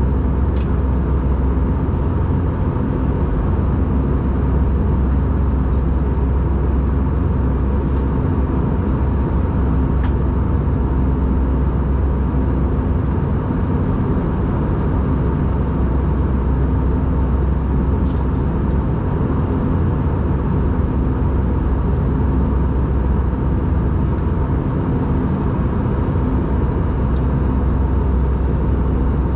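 Steady cabin noise of an Airbus A320 in cruise heard from a window seat: a constant low rumble of engines and airflow with a faint steady hum. A few faint clicks come through it.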